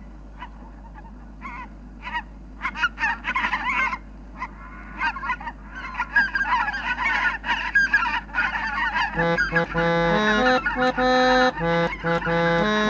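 A flock of white-fronted geese calling, many short overlapping honks that grow denser and louder, from a bird-sound field recording. About nine seconds in, music comes in underneath: a repeating pattern of held instrument notes.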